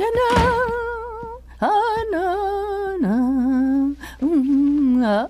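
A woman humming a tune: four or five long held notes with vibrato, stepping down in pitch.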